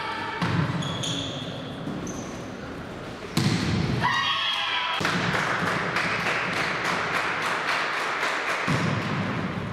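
Volleyball being played in an echoing sports hall: ball thuds and players' shouts. About three and a half seconds in, a loud burst of voices breaks out, then a steady din with quick, regular claps.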